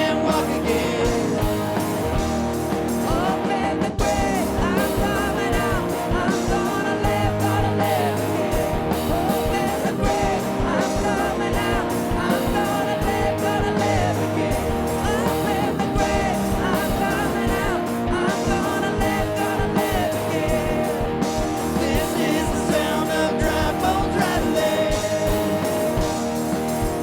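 Live worship band playing a rock-style song with electric guitars and drums, with singing over it.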